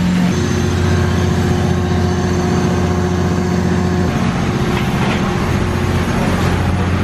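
Steamboat engine-room machinery, including a diesel engine, running with a loud, steady hum made of several low tones.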